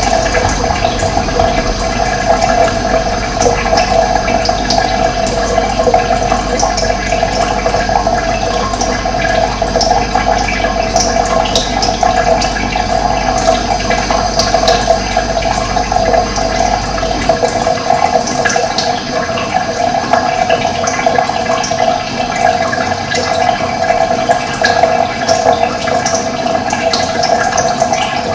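Running water with a steady, rushing hiss. A low hum underneath stops about two-thirds of the way through.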